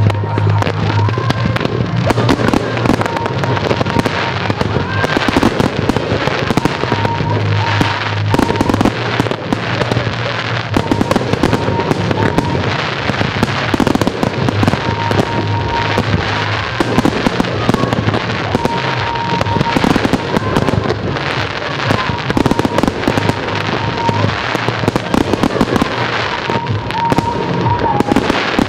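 Fireworks display: aerial shells bursting in a rapid, dense barrage of booms and crackles, one on top of the next with no pause.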